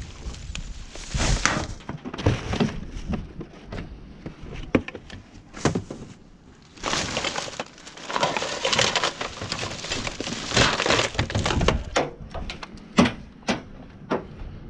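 Rummaging through discarded rubbish by hand: bags and packaging rustling in irregular spells while hard items clink and knock, with a few sharp knocks, the loudest a little before the end.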